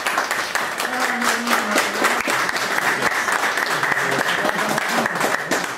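A small group of people applauding, with steady, dense hand-clapping throughout.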